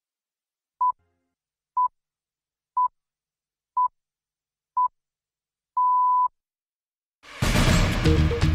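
Time-signal pips: five short, high, single-pitch beeps one second apart, then a longer sixth beep marking the hour, as in the BBC's Greenwich time signal. Loud programme theme music starts about a second after the last pip.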